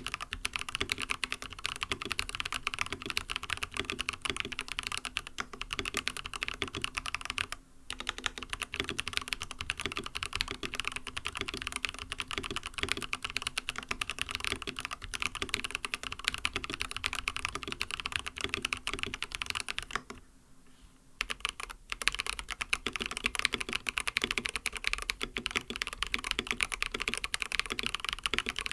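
Fast, continuous typing on an mStone Groove T keyboard with lubed, tactile non-clicky MMD Coral switches and silicone plate foam, the keystrokes coming in dense runs. There is a brief break about a quarter of the way in, and a pause of about a second and a half about two-thirds of the way through.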